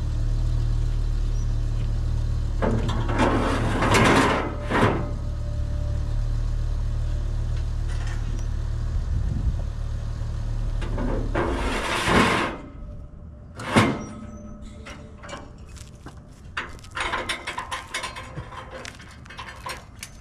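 A vehicle engine idling steadily, with two louder noisy swells, shuts off about twelve seconds in. A single sharp thunk follows, then a run of light, irregular clicks and rattles.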